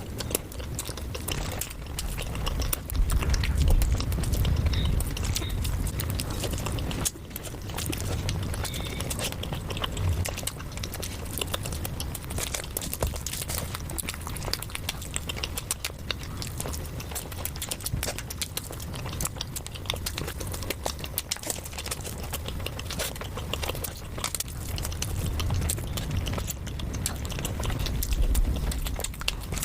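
Close-miked chewing and biting of food, a dense run of small mouth clicks over a low rumble.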